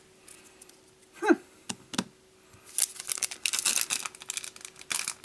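Foil trading-card booster pack crinkling and being torn open, a dense crackle starting a little past halfway, after a few soft clicks.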